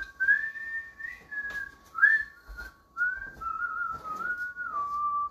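A person whistling a melodic tune, the notes sliding up and down in short phrases before it cuts off abruptly.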